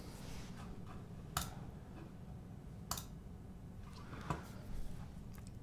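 Three isolated clicks of a computer mouse or keyboard, the first two sharp and about a second and a half apart, the last fainter, over a low steady room hum.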